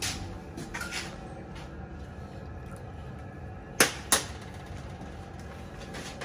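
Two sharp clinks of metal on a stainless saucepan, about a third of a second apart, as a vacuum-packed bag of lamb is lifted out of hot water. A steady low hum runs underneath.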